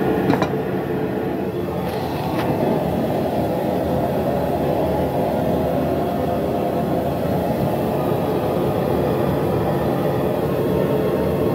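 A steady, loud rushing roar throughout, with two sharp metal clinks in the first few seconds as tools touch the red-hot railroad spike in the vise.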